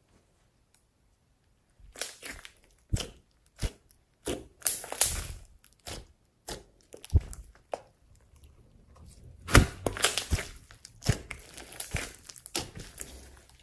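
Hands squeezing, stretching and folding a large mass of slime, giving wet, sticky crackles and irregular clicking pops as air pockets break. Silent at first, the squishing starts about two seconds in and is busiest near the end.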